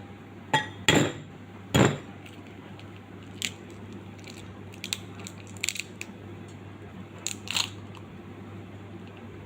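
Kitchen utensils knocking and clinking against cookware: three sharp knocks in the first two seconds, then a few lighter clicks, over a steady low hum.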